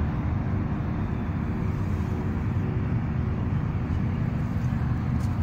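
Steady low rumble of motor traffic, with a faint steady hum over it.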